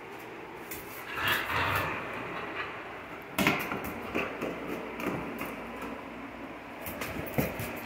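Dog moving about on a tile floor with a rope chew toy: claws clicking and the toy scuffing, with several short knocks. A louder scuffle comes about a second in, and a sharp one a little past three seconds in.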